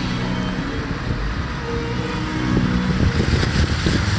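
Car driving along a flooded street: a steady engine hum under a continuous rush of tyres through water and wind.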